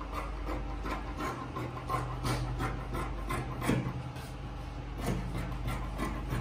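Tailor's scissors cutting through printed fabric laid on a wooden table, in a series of irregular snips.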